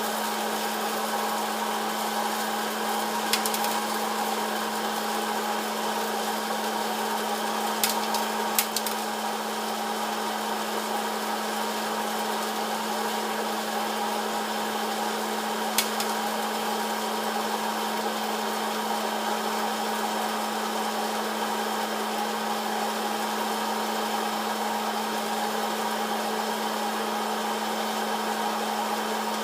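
Electric hot-air popcorn popper running: the steady blowing of its fan and heater with a constant hum, and four sharp pops of kernels bursting scattered through the first half.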